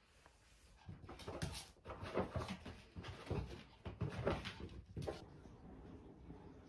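A Chihuahua playing with a stuffed cat toy on rugs and a wooden floor: irregular bursts of scuffling and knocking for about four seconds, dying down about five seconds in.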